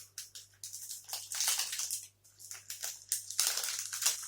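Close-miked chewing of a soft, fudgy Gainomax protein bar: irregular crackly mouth noises in quick bursts, with short gaps between them.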